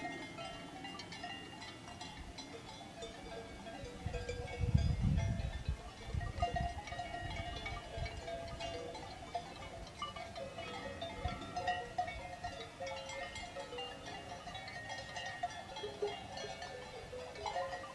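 Cowbells on grazing cattle clanking irregularly, several bells ringing at different pitches. A low rumble about four to six seconds in.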